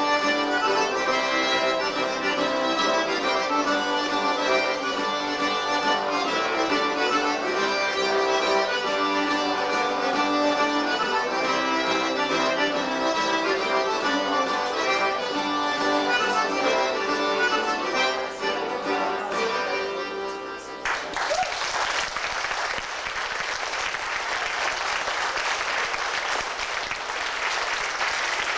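Cajun band of button accordion, fiddle and guitar playing a tune that ends about two-thirds of the way in. Audience applause follows.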